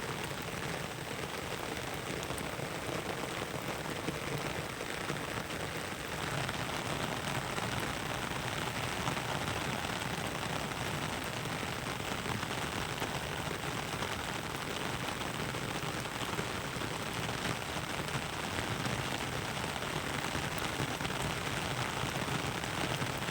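Heavy rain falling steadily in a forest, a dense even hiss of drops on surfaces, growing a little louder about six seconds in.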